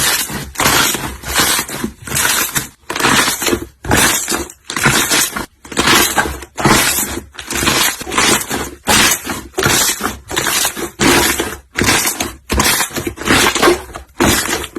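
A steady run of crunching pops, a little more than one a second, each a short noisy crackle with brief gaps between.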